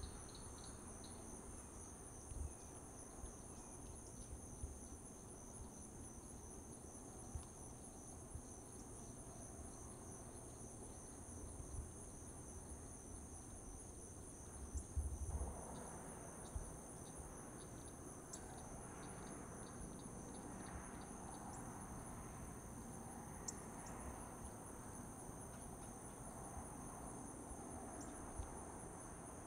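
Steady insect chorus of crickets, two high continuous trills, with a few low bumps, the loudest about halfway through.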